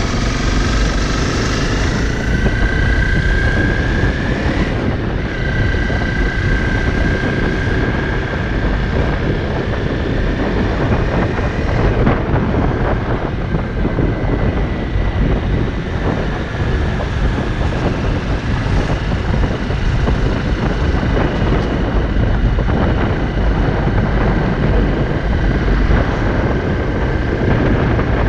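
Honda CRF250L's single-cylinder four-stroke engine pulling the bike up to speed on the road, its pitch climbing over the first few seconds and dropping back about five seconds in, then running steadily. Heavy wind rumble on the microphone runs under it.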